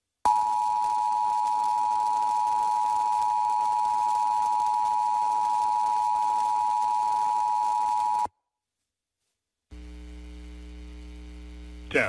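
Emergency Alert System attention signal: the steady two-tone sine of 853 and 960 Hz, sounding together for about eight seconds and then cutting off suddenly, marking the start of an emergency alert. After a short silence, a fainter steady hum begins near the end.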